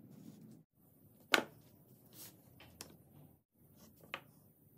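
Wooden parts handled and set down on a hard table: a few sharp knocks of wood on wood and tabletop, the loudest about a second and a half in.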